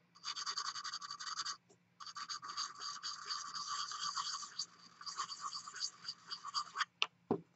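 Rapid back-and-forth scratching of a small sanding stick on the lacquer filling a chip in a porcelain bowl's rim: the final sanding of the middle black lacquer layer before red and gold. There is a short pause about a second and a half in, and a couple of light clicks near the end.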